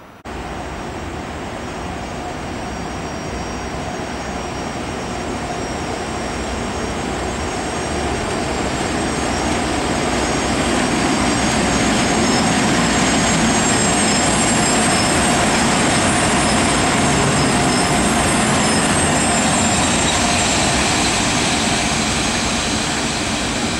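FS E.656 electric locomotive running light past a station platform: a loud steady rushing hum with a high whine over it, building over the first ten seconds or so, then holding and easing slightly near the end.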